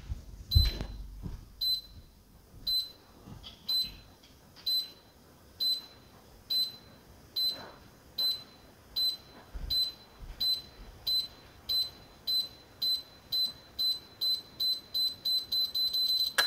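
UV-C disinfection lamp's warning beeper counting down before the lamp switches on: short high beeps, about one a second at first, quickening steadily to about three a second, then stopping. A few low thuds near the start.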